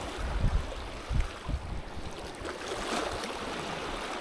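Small waves lapping and washing over shoreline rocks, a steady splashing wash, with a few low bumps in the first second and a half.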